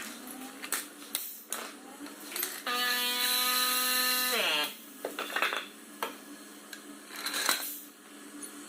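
Scattered clicks and knocks of work on the engine, and about three seconds in an electric power tool's motor runs at a steady high pitch for about two seconds, then winds down in pitch.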